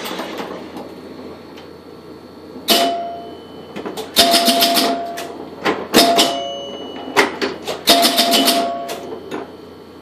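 1976 Bally Hang Glider electromechanical pinball machine in play: several bursts of rapid clicking from the score reels and relays, with chimes ringing as points score.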